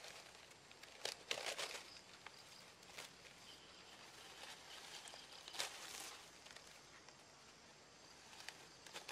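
Dry grass rustling and tearing as clumps are cut with a large knife and pulled out of the ground, in short crackly swishes about a second in, around three seconds, and again near six seconds.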